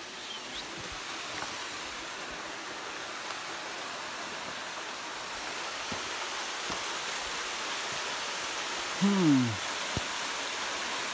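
Waterfall rushing steadily and growing slowly a little louder. About nine seconds in, a brief sound sliding down in pitch rises above it.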